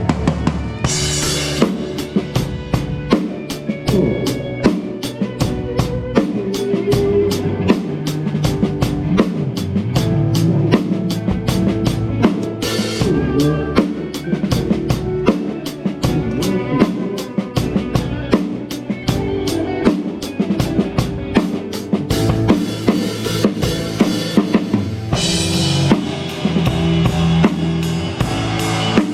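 Rock band playing live, the drum kit to the fore with a steady kick-and-snare beat over sustained pitched notes. Cymbal crashes come about a second in, near the middle and near the end.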